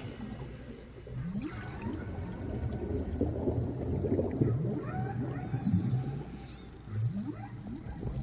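Whale song: a series of short, low, rising calls, some higher glides among them, over a steady low hum.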